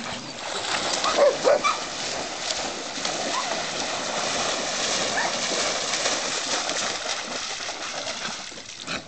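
Poodles swimming and splashing through the water, with a few short dog whines about a second in.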